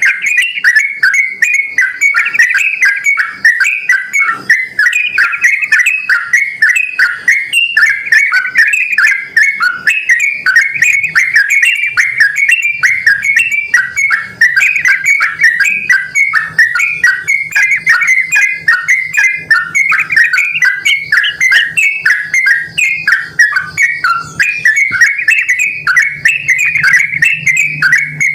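Yellow-vented bulbul (trucukan) singing in full voice: a fast, unbroken stream of short chirping notes.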